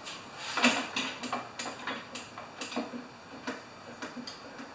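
Hand-pumped oil can clicking as it is pumped, a run of irregular sharp clicks, two or three a second, loudest about half a second in and softer toward the end.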